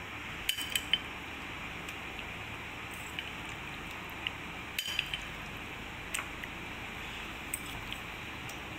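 Light, scattered taps and clinks of a spoon against a glass baking dish while a chicken layer is spooned onto lasagna, over a steady background hiss.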